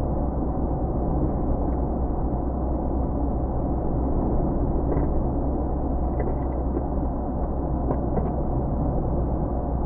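A vehicle driving, a steady low rumble of engine and road noise, with a few faint ticks or rattles about halfway through and again later.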